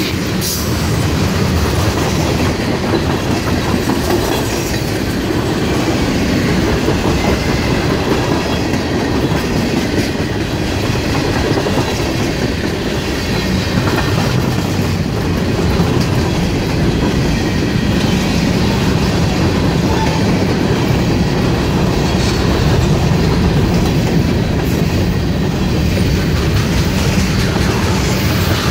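Freight train cars rolling steadily past, wheels clacking over the rail joints.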